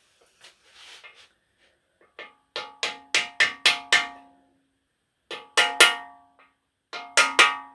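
Sharp metal taps on the thrust main bearing shell as it is knocked into its saddle in a bare cast-iron engine block, each tap making the block ring with a clear, bell-like tone. The taps come in three quick runs, the first and longest about two seconds in.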